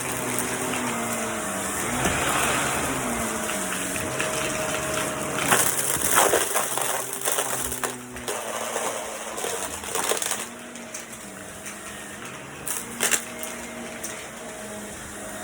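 Vacuum cleaner running, its motor hum shifting in pitch as it works, with rattles and sharp knocks, loudest a little past the middle and again near the end.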